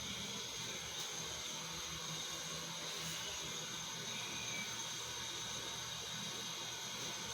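Steady background hiss with a faint constant hum and a thin high tone underneath, with no distinct events: room tone or recorder noise.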